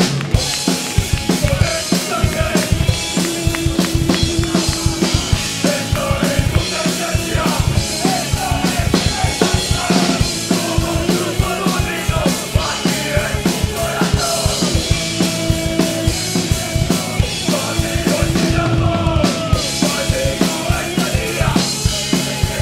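Live band playing with the drum kit loud in the mix: rapid kick-drum strikes, snare and cymbals driving under held guitar notes.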